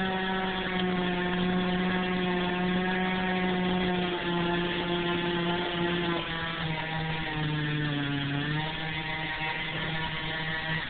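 Two-stroke chainsaw running at high speed, its pitch dipping lower several times as the engine comes under load while it cuts into wood.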